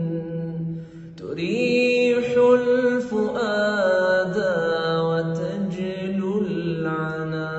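Male voice singing an Arabic nasheed: a long drawn-out melodic passage with pitch glides and held notes over a steady low drone. There is a short drop in level about a second in before the voice comes back.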